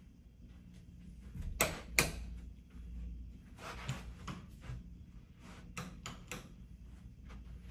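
A run of sharp clicks and knocks from things being handled, the two loudest about one and a half and two seconds in, then more scattered clicks through the middle and near the end. A low steady hum lies underneath.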